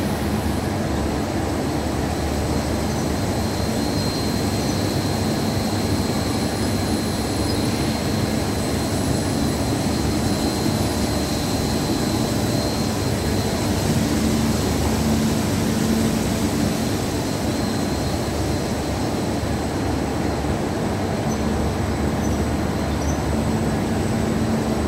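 Abendschön lye applicator and cutting machine running on a bakery line: motors and a stainless mesh conveyor belt give a steady, even running noise with a low hum and a thin high whine.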